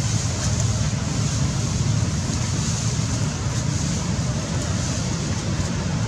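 Steady outdoor background noise: a low rumble with an even hiss above it, unbroken and without distinct calls or knocks.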